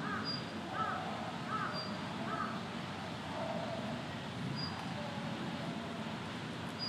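A crow cawing four times in quick succession, about one caw a second, in the first few seconds. Short high peeps come now and then over a steady low background noise.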